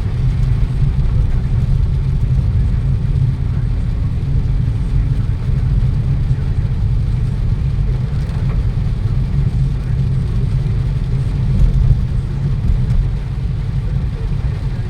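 Steady low rumble of a vehicle on the move, engine and road noise, with no clear changes.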